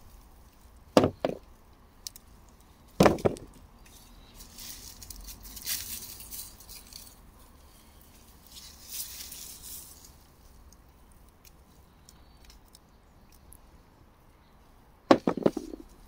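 Hands digging and rustling through straw mulch, soil and dry potato stalks while lifting potatoes by hand, with a few sharp knocks: two about a second in, one at about three seconds, and a quick cluster near the end.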